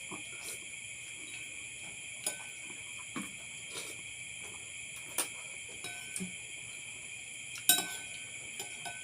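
Steady high chirring of crickets, with a few sharp clinks of cutlery against a dish while eating. The loudest clink comes about three-quarters of the way through.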